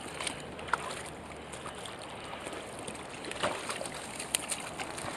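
A hooked trout splashing at the surface as it is drawn in to the bank, a few short splashes over the steady rush of river water.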